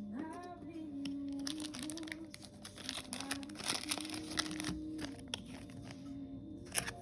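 Background music with a melody, over crinkling and crackling as foil Pokémon card booster packs and cards are handled and opened.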